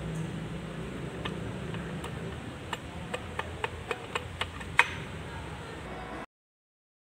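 A run of about eight sharp metallic clicks, roughly three or four a second, the last the loudest, from the gears of a Kubota B6001 tractor transmission being worked by hand in its open case. A steady low hum lies underneath, and everything cuts off suddenly near the end.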